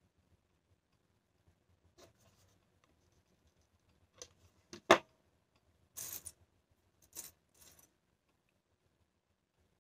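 Thin jingle shells clicking and rattling as they are picked up and handled on a tabletop, with one sharp louder click about halfway through and a few short scratchy rattles after it.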